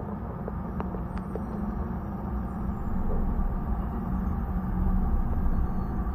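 Low, steady ambient drone from a background soundtrack, with a few faint ticks in the first second or so.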